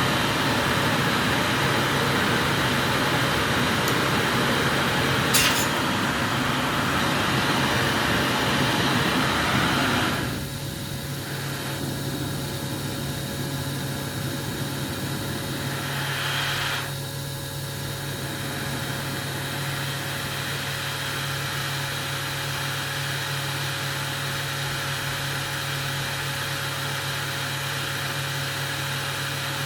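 Glassblower's gas burner flame hissing steadily over a constant low machine hum; the hiss drops off sharply about ten seconds in as the flame is turned down, with a short click before it and a brief hiss again a few seconds later.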